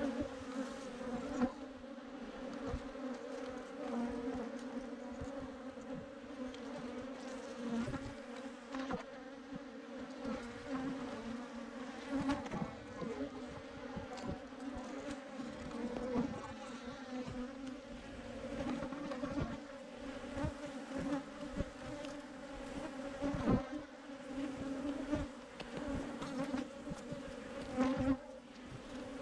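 A swarm of Africanized honey bees buzzing in a dense, steady hum, with occasional knocks and rustles of handling.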